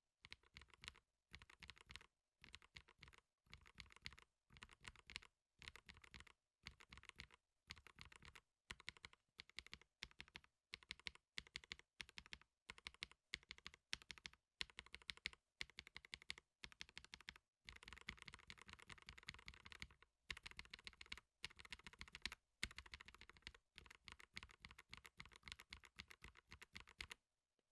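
Typing on a KBD67 Lite mechanical keyboard, in quick runs of keystrokes with brief pauses between them. The switches are one of three builds under blind comparison: an Epsilon frankenswitch mix, Gateron Ink Black V2 or stock Epsilon.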